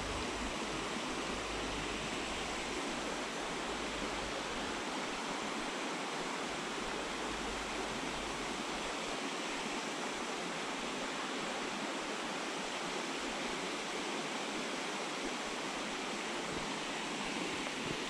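Steady rush of a small mountain stream running over a rocky bed, an even hiss with no breaks.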